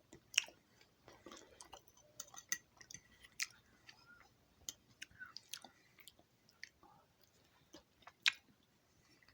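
A person chewing a mouthful of food, with irregular soft clicks and smacks from the mouth.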